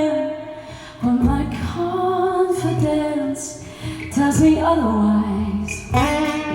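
A woman singing live, gliding between long held notes, over acoustic guitar chords.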